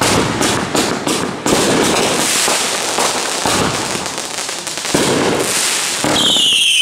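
Consumer aerial fireworks bursting overhead: several sharp bangs in quick succession, then dense crackling from the bursting stars. A shrill, slightly falling whistle comes in near the end.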